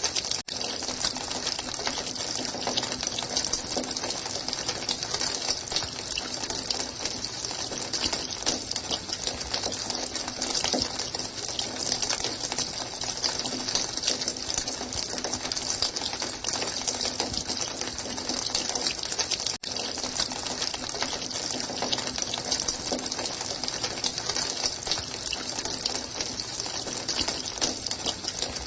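Running water, a steady, even gush with most of its sound in the hiss. Two very brief drop-outs come, one about half a second in and one near two-thirds of the way through.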